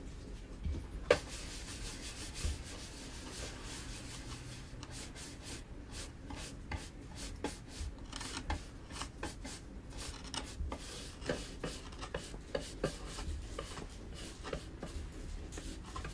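Hand-carving a cherry-wood printing block: a stream of short, irregular scratching strokes of a carving knife cutting into the wood, getting busier about halfway through, with a sharp click about a second in.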